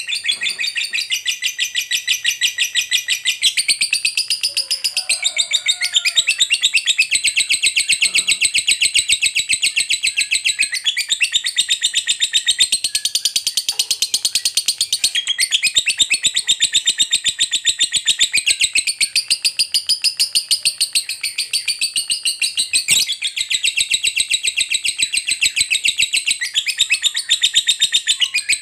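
Fighter lovebird giving the long 'ngekek' chatter prized by keepers: a rapid, shrill, high-pitched string of notes, many to the second, in one long unbroken run. One sharp click about three-quarters of the way through.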